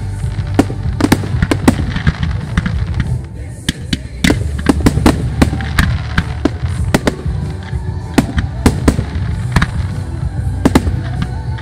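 Fireworks display: aerial shells bursting one after another at an uneven pace, several sharp bangs and crackles a second over a steady low rumble.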